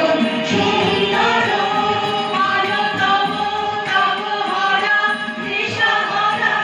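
A group of women singing a song together in unison, accompanied by a harmonium.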